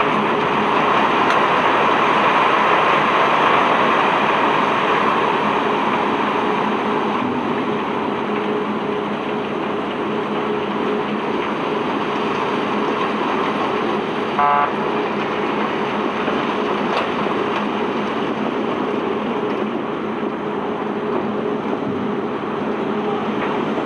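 Unloading machinery of a self-unloading sand ship running steadily: a constant mechanical rush with a low steady hum, and one short high chirp about midway.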